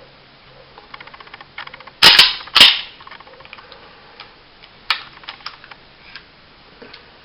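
Steel parts of a compact 9mm 1911-style pistol clacking together during reassembly: two loud, sharp metallic clacks about half a second apart, with light clicking and handling ticks before and after.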